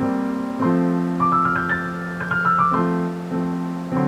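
Background piano music: single notes climbing and then stepping back down over sustained low chords.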